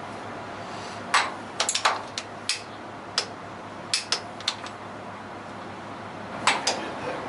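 Hand tools on metal: a wrench and socket clicking and clinking at irregular intervals, about a dozen sharp metallic ticks, as the engine's nuts are tightened.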